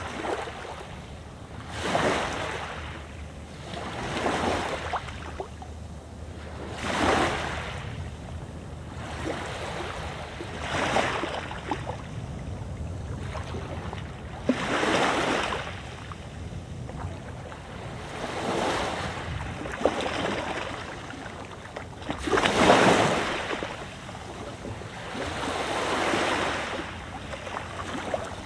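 Mediterranean waves breaking and washing up the beach, about ten of them at two- to four-second intervals, each swelling and falling away, the loudest about three quarters of the way through. A steady low wind rumble on the microphone runs underneath.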